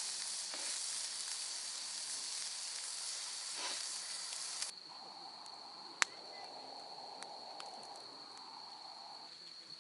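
Food sizzling over a campfire, a loud steady hiss, with fat dripping into the fire. The hiss cuts off abruptly just under halfway through, leaving quieter fire sounds with one sharp click, and a thin high whine runs throughout.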